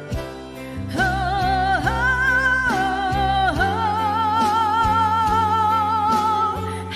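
Woman singing wordless held notes with a wide vibrato over a backing track with a steady beat and bass. After a soft first second, the voice moves through a few short held notes and then sustains one long note for about three seconds.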